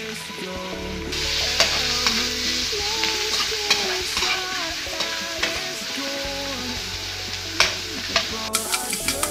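Longganisa, mushrooms and sweet ham sizzling in a wok while being stirred, with sharp clicks and scrapes of a metal spatula against the pan. The sizzle gets louder about a second in. Background music plays underneath.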